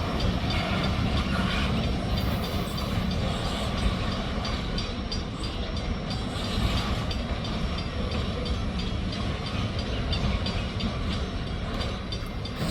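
Freight train cars rolling slowly past with a steady rumble of wheels on rail, and a faint regular ticking high above it.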